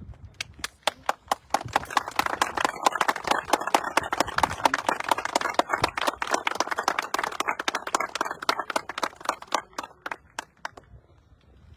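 A small group of people applauding by hand. The clapping builds within the first couple of seconds, holds, and thins out to a few last claps near the end.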